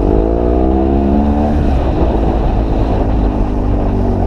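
BMW R1200GS Adventure's boxer-twin engine through an aftermarket SC Project GP exhaust, accelerating with a rising note that eases off about a second and a half in. Steady wind noise on the microphone underneath.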